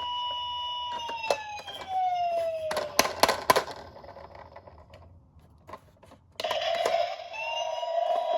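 Toy police car's electronic siren wailing, its tone holding and then falling away over the first few seconds. A few sharp clicks follow, then a short lull, and the siren starts up again about two seconds before the end.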